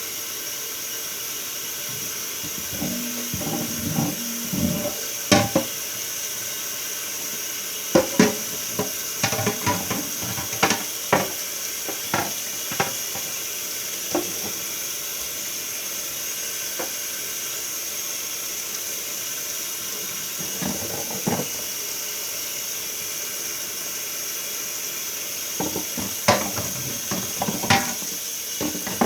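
Tap water running steadily into a sink while dishes are washed by hand, with scattered clinks and knocks of dishes, in clusters in the first half and again near the end.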